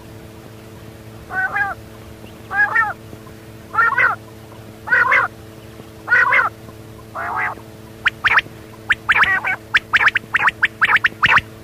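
A quail calling: six drawn-out calls about a second apart, then, about eight seconds in, a fast run of short sharp notes. A steady low hum runs underneath.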